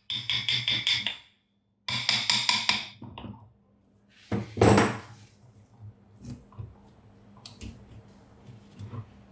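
Hammer tapping metal rapidly, about seven blows a second, in two short runs, then one heavier knock and a few light metallic clinks.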